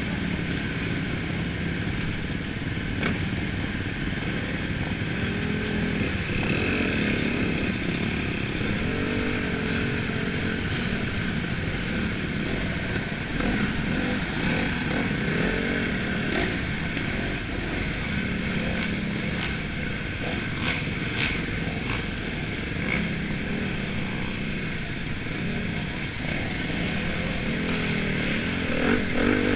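Suzuki RM-Z250's four-stroke single-cylinder motocross engine running at low revs, its pitch rising and falling with light throttle as the bike rolls at walking pace, heard close up from a helmet-mounted camera.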